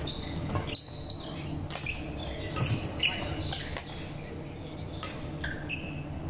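Badminton rally: rackets hitting the shuttlecock with sharp clicks and sports shoes squeaking on the court floor, many short squeaks scattered throughout.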